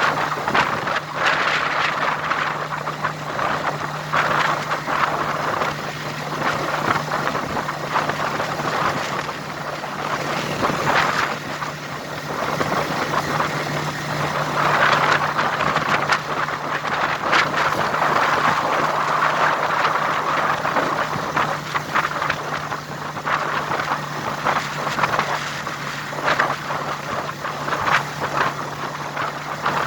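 A vehicle running on the road: a steady engine hum under a loud rushing, crackling noise.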